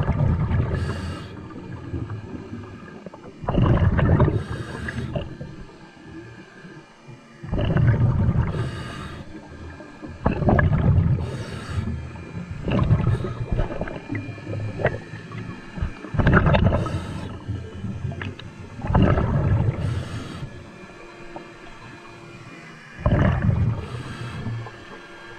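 A scuba diver breathing through a regulator underwater: a short hiss of each inhalation and a gurgling rush of exhaled bubbles, repeating about every three to four seconds.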